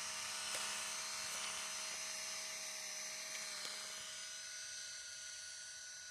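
3D printing pen's small filament-feed motor whirring with a steady high whine and a few faint ticks, easing off toward the end; the motor runs but no filament is coming out of the nozzle.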